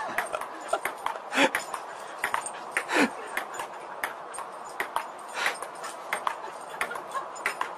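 Table-tennis ball clicking irregularly as it bounces on the table and is batted back by a dog's mouth. A short falling vocal sound comes about three seconds in.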